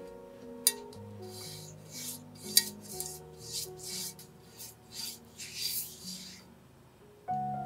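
Pastry brush spreading oil over a nonstick frying pan: a series of short scratchy strokes of the bristles on the pan's coating, about two a second, stopping near the end. Soft background music underneath.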